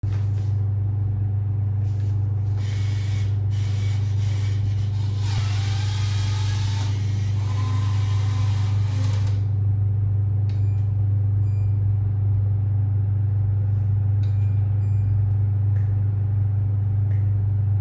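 Refrigerated drinks vending machine humming steadily in a low tone. Over it there is a rushing noise for the first nine seconds or so as a banknote is fed in, then a few short electronic beeps as its keypad is pressed.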